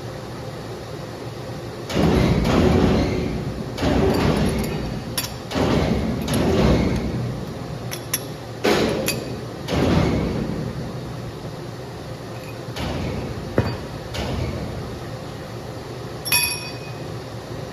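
Metal-on-metal scraping and sliding in a series of swells, with sharp metallic clinks and one ringing clank near the end, over a steady machine hum.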